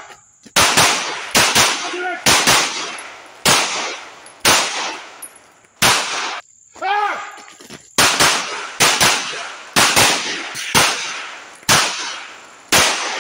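9mm semi-automatic pistol fired again and again, around eighteen shots, each a sharp crack with a ringing echo that dies away. The shots come at an uneven pace, some in quick pairs, others a second or more apart, with a pause of about two seconds in the middle.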